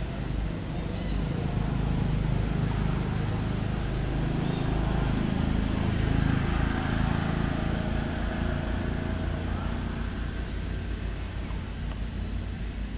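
Steady low rumble with an even hiss over it: outdoor background noise, a little louder in the first half.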